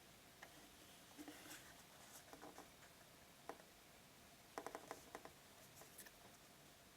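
Faint handling sounds of a watch winder and its packaging: soft scratchy rustles and scattered small clicks and taps, with a quick run of clicks about two-thirds of the way through.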